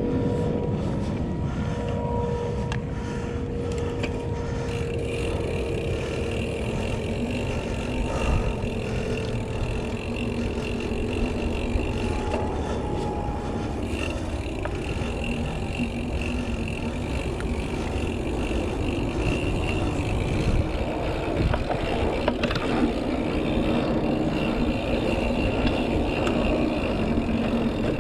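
Mountain bike ridden over a dirt trail: steady wind rush on the microphone with tyre noise, and small knocks and rattles from the bike throughout.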